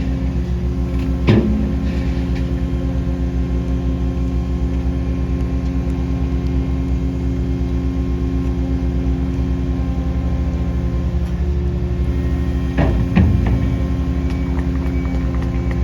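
Skid steer loader engine running at a steady speed, with a sharp clank about a second in and a couple more knocks near the end.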